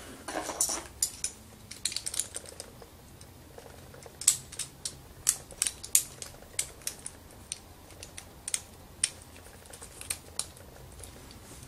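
Beyblade top being assembled by hand: its metal wheel, crystal wheel, track and tip clicking and clacking together in irregular sharp clicks.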